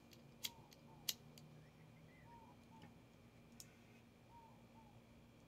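Lighter being struck to light a small glass pipe: a few sharp clicks in the first second and a half and one more later, over near silence.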